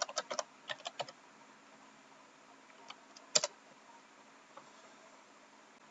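Computer keyboard typing, a quick run of keystrokes for about a second, then a pause and one louder click a little over three seconds in.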